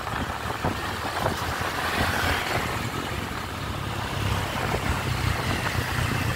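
Traffic on the move: motorbike and scooter engines running, with a steady low engine rumble under road and wind noise.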